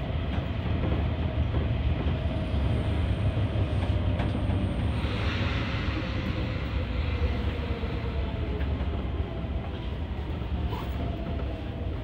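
Sotetsu Line electric train running, heard from the driver's cab: a steady rumble of wheels on rails as it slows into the station. A faint tone slowly falls in pitch, and a short hiss comes about five seconds in.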